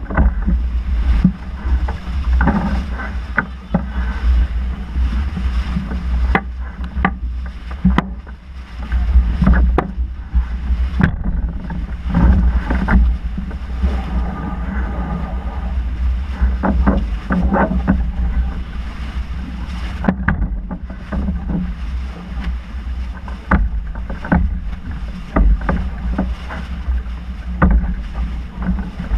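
A sailing yacht under way: wind rumbling on the microphone and water rushing, with frequent sharp knocks and clicks.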